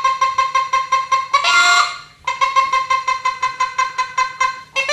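Hand-held roe deer call blown to imitate a hen's cackle after laying an egg: quick runs of short clucks, about seven a second, twice broken by a longer drawn-out cry.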